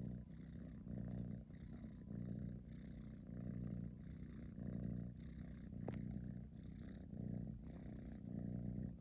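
British Shorthair tabby kitten purring steadily close to the microphone, the rumble swelling and easing a little more than once a second with each breath in and out as the kitten dozes.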